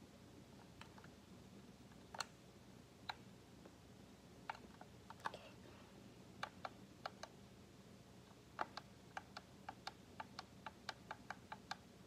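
Light, sharp clicks and taps of small hard pieces being handled, scattered at first, then a quicker run of about four a second from a little past the middle almost to the end.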